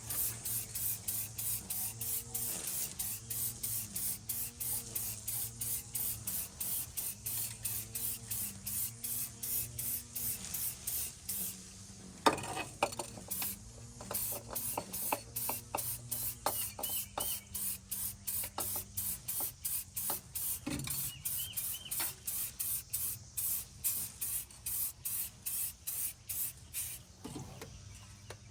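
Aerosol spray paint can hissing in short rapid bursts, about two or three a second, as paint is sprayed on; the bursts stop for a couple of seconds midway, then go on.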